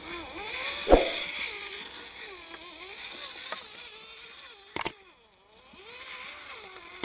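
Electric drive of an MN99S 1/12-scale RC Land Rover Defender crawler whining, the pitch rising and falling as the throttle is worked. There is a thump about a second in and a sharp double click near five seconds, followed by about a second of dead silence.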